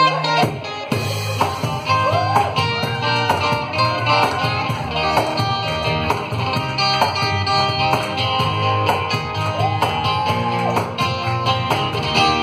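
Live band music: strummed acoustic guitar with electric guitar and hand percussion, and a woman singing.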